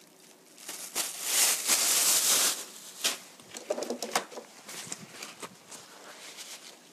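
Thin plastic bag crinkling loudly for about a second and a half as it is handled, followed by a few light clicks and softer rustles.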